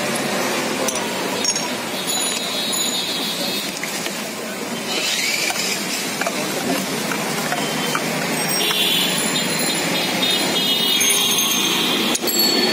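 Busy street ambience: steady traffic noise with a high-pitched tone that comes and goes twice.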